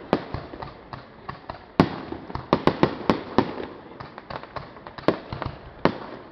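Fireworks going off: a string of sharp bangs and cracks at irregular intervals, some in quick clusters, with the loudest bang about two seconds in.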